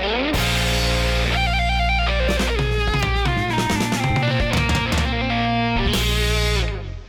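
Upbeat background music with electric guitar and drum kit, which fades out near the end.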